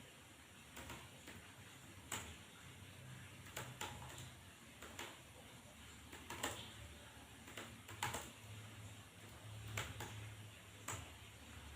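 Faint, irregular clicks of computer keyboard keys being pressed, roughly one a second, over a low hum.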